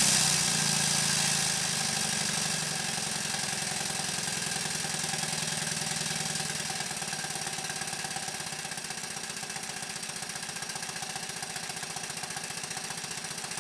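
Single-cylinder model showman's traction engine running fast on compressed air: a rapid, even beat of exhaust puffs with hissing air. The hiss is strongest at the start, and the sound settles lower after a couple of seconds.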